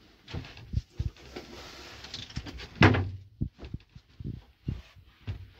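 Knocks and thumps of a motorhome's dinette seat cushions and boards being lifted, shifted and set down to make up a bed, with some rustling. The loudest thump comes about three seconds in.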